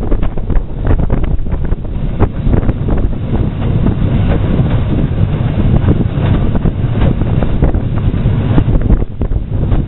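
Wind buffeting the microphone over the running of the Victorian steam well tank locomotive 30587 and its train: a loud, continuous low rumble broken by frequent irregular knocks and clatter.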